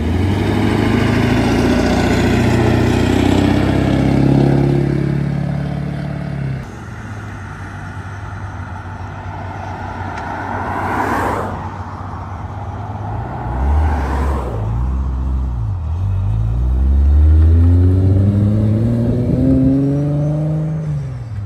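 Performance car engines running and revving. The engine note falls over the first few seconds and then runs low and steady. Two short, louder rushes come about 11 and 14 seconds in, and the revs climb again near the end.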